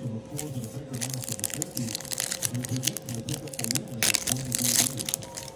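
Foil trading-card pack wrapper crinkling and tearing open, the crackling loudest about four seconds in.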